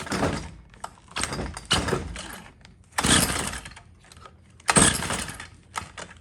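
Stihl FS45 two-stroke string trimmer's recoil starter pulled about five times, the engine cranking without firing because its on-off switch was left in the off position.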